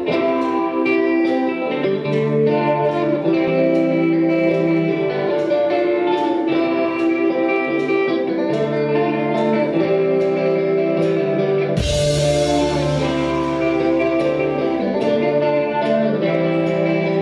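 Live rock band playing an instrumental passage: electric guitars picking sustained, ringing notes over bass guitar, with a brighter cymbal wash joining for a few seconds about twelve seconds in.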